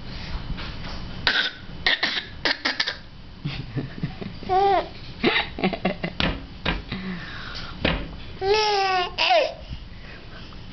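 A baby doing a pretend 'smoker's cough': a string of short, breathy fake coughs. These are mixed with high-pitched babbling calls and laughter.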